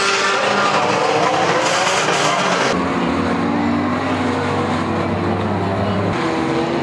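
Banger race car engines revving and running, several at once, with tyre noise. The sound changes abruptly about three seconds in.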